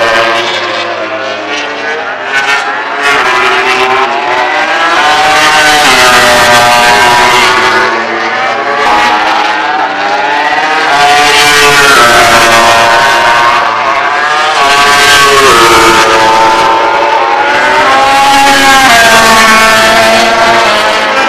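MotoGP racing motorcycles, 1000 cc four-stroke prototypes, running hard on track. Their engine notes rise in pitch as they accelerate and drop between gears, with several bikes passing one after another in loud swells.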